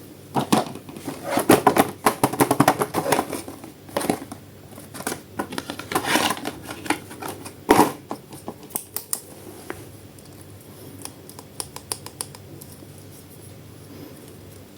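Hands unboxing an action-figure toy: an irregular run of sharp clicks and snips, like scissors cutting and plastic packaging being handled. It is busiest in the first seven seconds and thins out to a few faint clicks toward the end.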